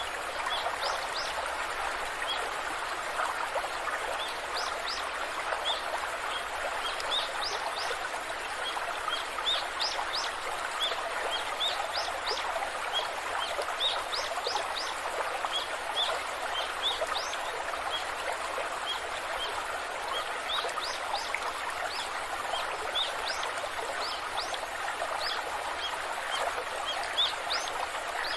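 Waterfall rushing in a steady, even wash of falling water, with small birds repeatedly giving short, high chirps over it.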